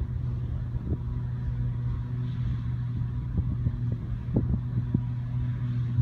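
Self-propelled forage harvester, which the title gives as a Claas Jaguar 870, chopping grass from a windrow and blowing it into a trailer, with the tractor hauling the trailer running alongside. Together the engines and chopper make a steady drone with a constant low hum.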